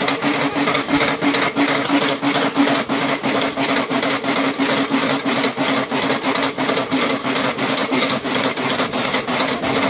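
Dog treadmill running fast with a steady hum and rubbing noise, while a dog's paws strike the running surface in a quick, even rhythm as it sprints.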